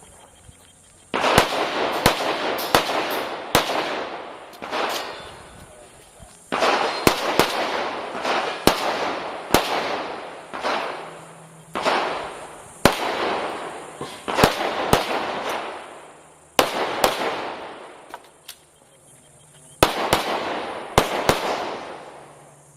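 Pistol shots fired in rapid strings during a timed practical-pistol stage. About five strings of quick shots, each sharp crack trailed by a long echoing decay, with short pauses between the strings.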